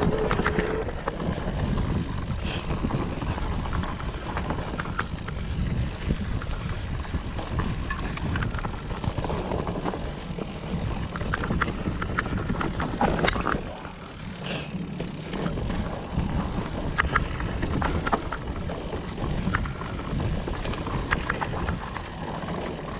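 Specialized Turbo Levo electric mountain bike descending a dirt forest trail: a steady rumble of wind on the microphone and tyres on the ground, broken by frequent sharp clicks and rattles from the bike over roots and bumps.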